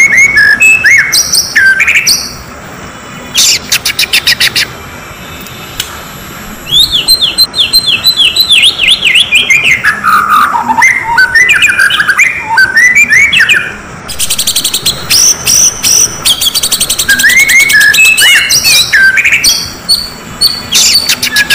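Oriental magpie-robin (kacer) song used as a provocation call: loud, varied phrases of clear whistles, rising and falling note runs and fast chattering rattles, with short pauses between.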